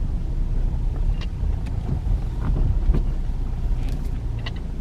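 2010 Ford Fusion driving, heard from inside the cabin: a steady low road and engine rumble with a few faint short clicks or creaks scattered through it, the kind of noises the driver says he can still hear after the outer tie rod end was replaced.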